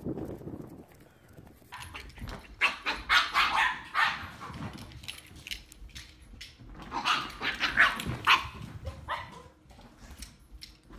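A dog barking in two runs of quick, sharp barks, a few seconds in and again about seven seconds in.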